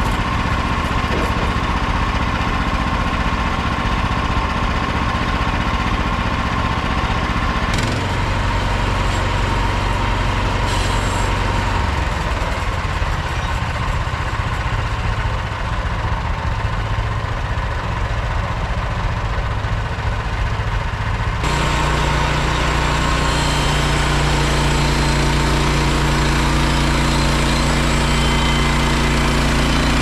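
Small petrol engine of a Frontier OS27 portable bandsaw mill running steadily. About 21 seconds in, its note changes abruptly and gets a little louder.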